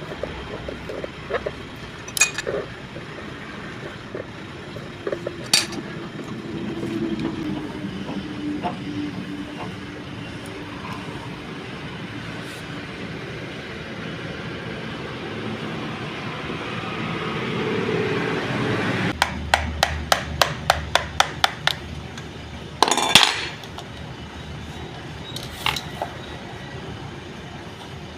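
Metal hand tools and parts being handled on a workbench: scattered sharp clicks and knocks over a low hum. About two-thirds through comes a quick run of regular ratchet-like clicks, about four a second, then a loud clatter.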